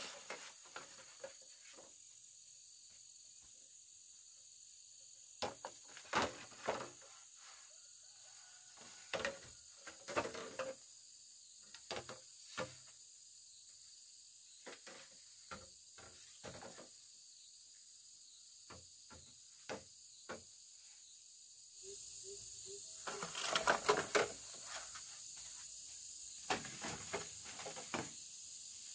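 Steady high-pitched chorus of insects, with scattered close rustles, clicks and knocks of handling. The rustling thickens into a louder spell late on.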